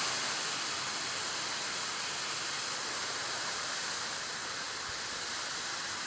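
Teerathgarh waterfall pouring down a stepped rock face: a steady rush of falling water.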